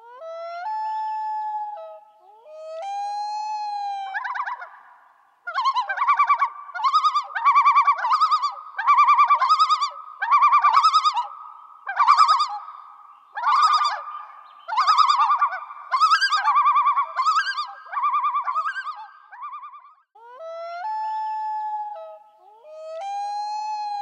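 An animal's calls in a repeating sequence: two long, steady calls with a slight downward bend at first, then a run of a dozen or so short trilled calls at about one a second, then two long calls again near the end.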